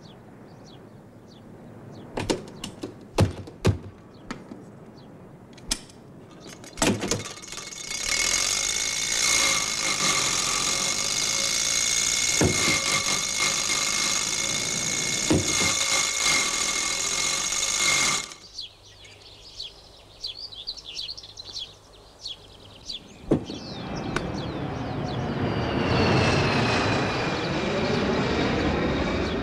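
Scattered clicks and knocks, then a vintage car's engine running steadily with a high whine for about ten seconds before cutting off. After a quieter stretch, a jet aircraft flies over, rising in level with a whistle that slowly falls in pitch.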